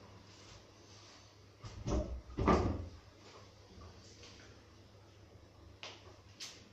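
Two dull knocks about two seconds in, then two sharper clicks near the end, over a low steady hum.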